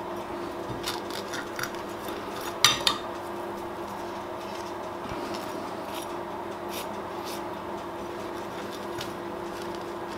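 A metal spoon clinking against a glass baking dish and scraping through cinnamon sugar, a handful of scattered clinks with the loudest about two and a half seconds in, over a steady background hum.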